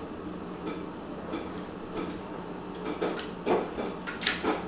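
Light plastic clicks and knocks as the loosened front bezel of a BMW radio/MID unit is shifted and worked by hand, a few sharper clicks coming in the last second or so.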